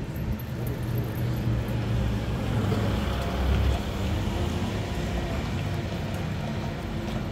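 Road traffic: the steady low hum of passing motor vehicles' engines, swelling slightly about three and a half seconds in.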